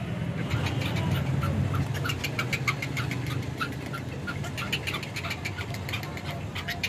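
Rapid light clicking and rattling of the bird cage's feed cup and feeder door as a hand works the cup into place, starting about half a second in and growing busier. A steady low hum runs underneath.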